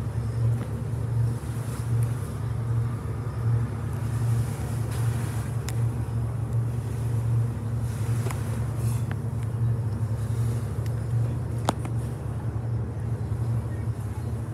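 Wight Light car ferry's engines running as a steady low drone, with a few faint clicks over it.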